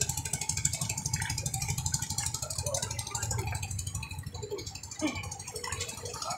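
Small engine running at a rapid rattling idle, growing fainter about four seconds in.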